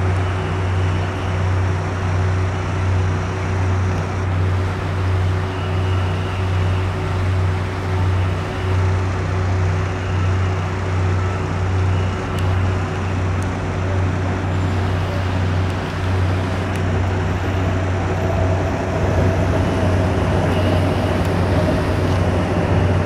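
A motor running steadily: a loud low drone with a slow, regular pulse and a thin steady hum above it. A fainter higher tone joins it a few seconds before the end.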